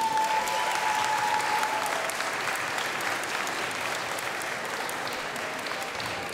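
Audience applauding in a large hall, the clapping rising sharply at the start and slowly thinning out. One held high note rides over it for the first two seconds.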